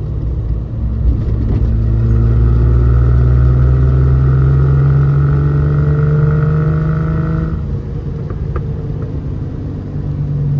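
Fuel-injected straight-six of a 1970 Triumph GT6+ through a Bell dual exhaust, pulling under steady acceleration with its note rising slowly. About seven and a half seconds in the pitch drops suddenly, then the note builds again near the end.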